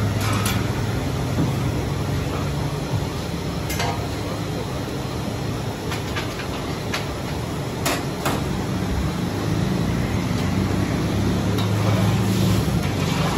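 Steel ladles clinking and knocking against large aluminium cooking pots, several sharp strikes a few seconds apart, over a steady low rumble.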